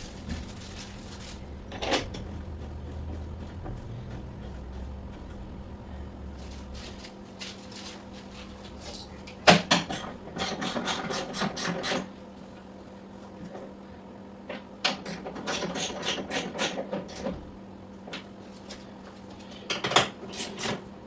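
Handling noises from refitting a motorcycle saddlebag: a sharp knock, then a couple of seconds of rapid clicking and rattling, more clicking a few seconds later, and another knock near the end, over a steady low hum.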